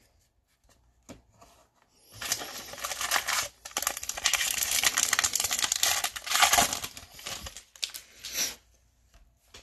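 Foil wrapper of a 2020 Bowman baseball card pack being torn open, crinkling. The crackly rustle starts about two seconds in and stops about a second before the end.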